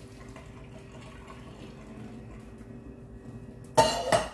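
Faint trickle and drip of water draining from boiled bitter leaf through a plastic colander into a steel sink. Near the end, a loud, short metallic clatter with a brief ring as the cooking pot is set down on the electric hob.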